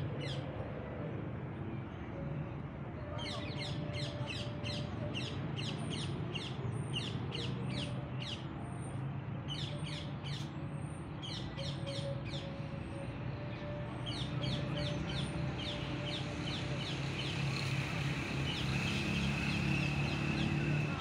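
Birds chirping in quick runs of short, sharp, high calls, several a second, from a few seconds in until near the end, over a steady low background rumble.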